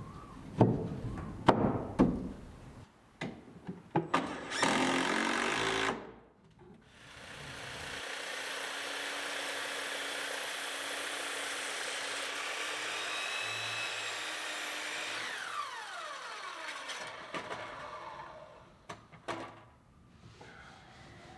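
A few sharp knocks of construction work, then a power tool runs steadily for several seconds and winds down with a falling whine as its motor coasts to a stop.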